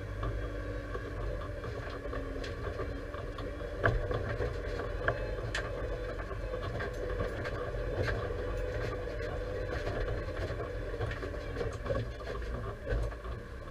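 Deutz-Fahr 5100G tractor's engine running steadily, heard from inside the cab. Occasional knocks and rattles come through, the loudest about four seconds in.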